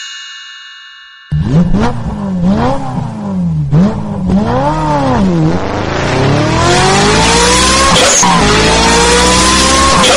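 Car-racing video game engine sound effect. It revs up and down about once a second, then accelerates in long rising pulls, dropping briefly between them like gear changes. A ringing chime fades out just before the engine starts.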